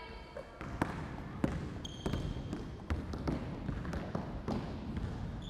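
Basketballs bouncing on a wooden gym floor as players dribble up the court, with irregularly spaced thuds and a brief high squeak about two seconds in.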